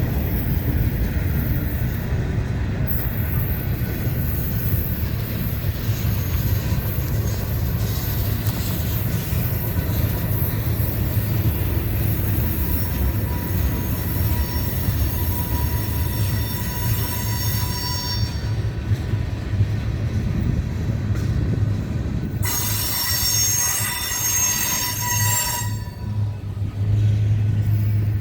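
Manifest freight train cars rolling past with a steady low rumble of wheels on rail. High-pitched wheel squeal comes in twice, first about halfway through and again near the end.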